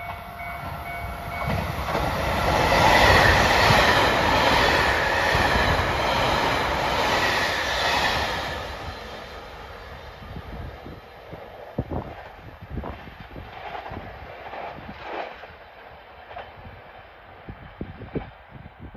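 A JR Hokkaido 789-series electric limited express train passes through the station at speed. The rush of wheels on rail builds to a loud peak, with rhythmic clacking over the rail joints, then fades quickly as the train pulls away.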